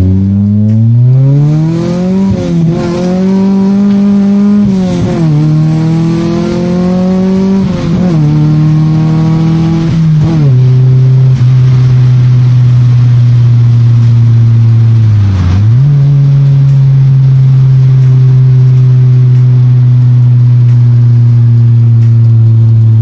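Honda Civic's engine heard from inside the cabin, accelerating with its pitch rising and dropping at several gear changes, then running steadily at cruising speed, with a brief dip in revs about two-thirds of the way in.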